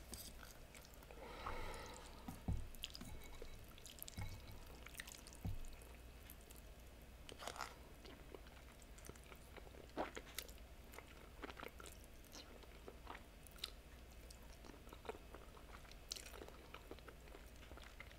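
Close-miked, quiet eating of noodles: soft chewing and sucking-in of noodle strands, heard as scattered small wet clicks. A few low soft knocks come in the first six seconds.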